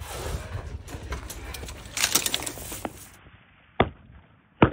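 Machine gun firing on a range: one sharp shot about four seconds in, then a rapid burst of several shots right at the end. Before that comes a scraping, rubbing noise with a quick cluster of clicks about two seconds in.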